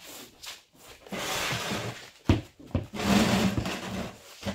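Drywall sheet rubbing and scraping against the wall as it is pushed into place, in two long rubs of about a second each with a couple of sharp knocks between them.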